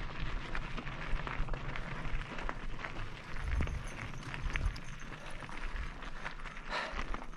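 Mountain bike being ridden over a rough trail: tyres crunching and bike parts rattling in many irregular clicks, with wind buffeting the microphone in an uneven low rumble.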